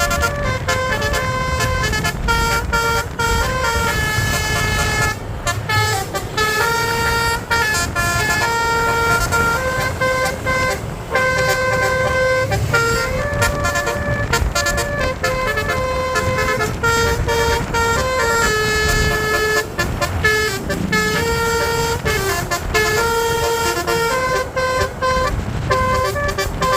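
Basuri (telolet) bus horn playing a continuous tune in stepping multi-tone notes, with a low rumble underneath.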